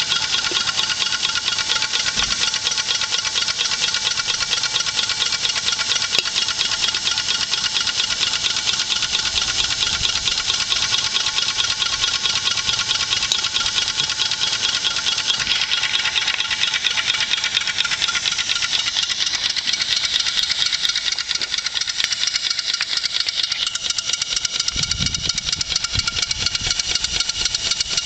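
Hand-made 1-inch-scale live steam traction engine running on compressed air, giving a steady, rapid stream of exhaust beats.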